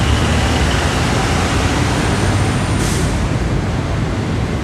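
Steady road traffic noise from a busy city street, with a short hiss about three seconds in.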